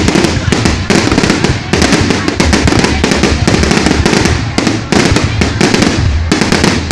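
Fireworks display going off continuously: a dense run of loud bangs and crackles with a deep rumble underneath.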